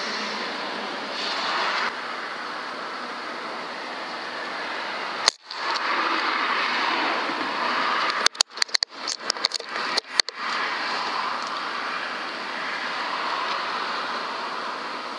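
Steady wind noise on the microphone, broken by a single sharp crack about five seconds in and a quick run of sharp clicks and knocks between about eight and ten seconds in.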